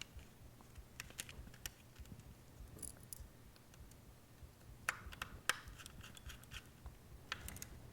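Small screwdriver driving a tiny screw through a drive mounting frame into a laptop hard drive: faint scattered clicks and short scratches of the tool on the screw and metal, in several small clusters.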